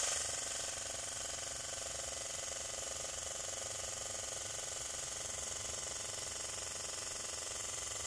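Homemade PVC-pipe coffee maker running while it brews, giving a steady mechanical buzz.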